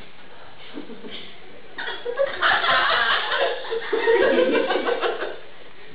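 People laughing, starting about two seconds in and dying down after about three seconds.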